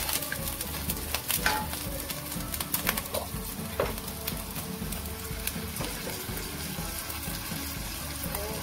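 Minced garlic sizzling in hot oil in a stainless wok, with a steady hiss. A wooden spatula scrapes and taps against the pan a few times in the first half as the garlic is stirred.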